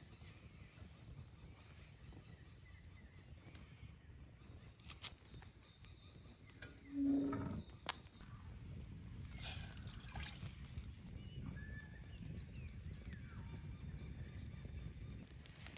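Quiet forest ambience with a low steady rumble, faint high bird calls and scattered faint clicks. A short louder call or knock comes just before seven seconds in, and a brief hiss about nine and a half seconds in.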